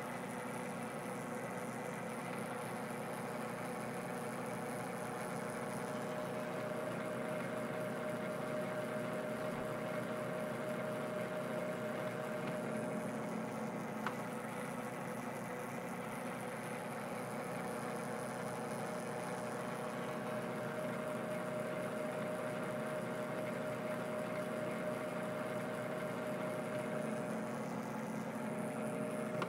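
Metal lathe running steadily under power, its motor and drive giving a constant hum with a few steady tones, while single-point threading passes are taken. One faint click about halfway through.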